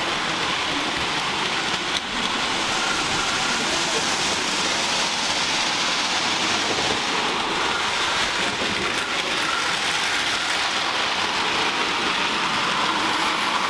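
Model trains running on a layout: a steady rushing rattle of wheels rolling along the track, with no pauses.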